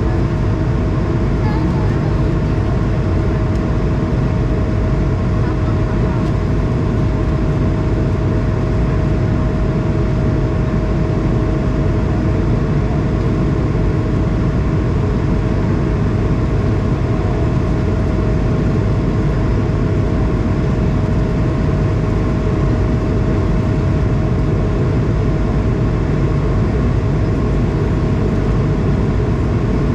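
Steady cabin noise of an Airbus A220 in flight, heard from inside next to the wing: its Pratt & Whitney PW1500G geared turbofan engines run at a constant level, giving a low, even rush with one steady hum-like tone above it.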